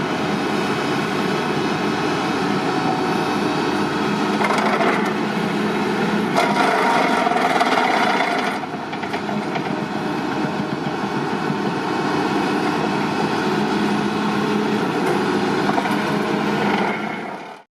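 Excavator at work: its engine runs steadily under load along with continuous noise from the work, which swells twice, around five and seven seconds in.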